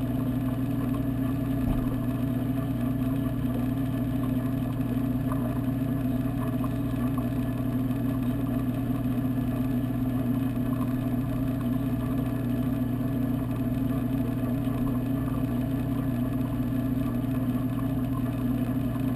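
Steady low mechanical hum of the aquarium's water pumps, heard underwater through a camera's waterproof housing; it holds the same pitch and level throughout.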